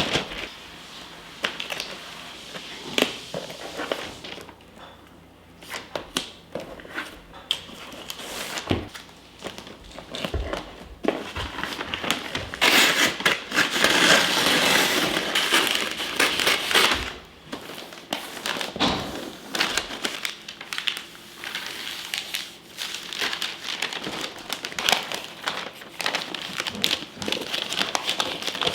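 Crinkling and rustling with many scattered clicks and knocks, at its loudest and densest for a few seconds around the middle.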